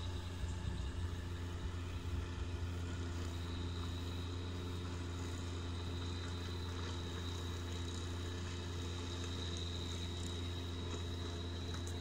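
New Holland tractor's diesel engine running steadily, with a thin high-pitched whistle held over it that gets stronger about four seconds in.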